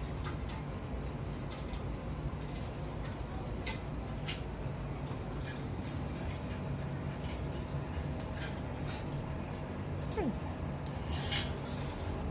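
Scattered light clicks and rustles over a steady low hum, with a brief falling whistle-like glide about ten seconds in and a denser cluster of sharp clicks near the end.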